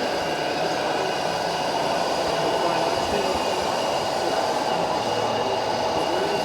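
Steady mechanical whir with several high steady tones, over a faint murmur of voices.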